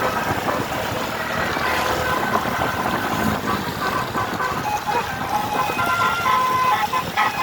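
A tour bus's telolet basuri musical horn playing a tune of held notes that change pitch, over the bus's engine and road noise.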